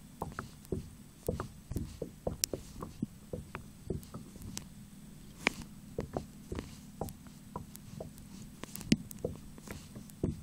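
Muffled handling noise of a cell phone recording underwater inside a waterproof pouch: irregular clicks and knocks, several a second, over a low steady hum.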